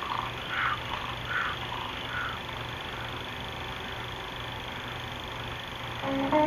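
A cartoon bear's sound effects on a 16 mm film's optical soundtrack: three or four short rough animal sounds about a second apart, then only the soundtrack's steady low hum and hiss, with music starting near the end.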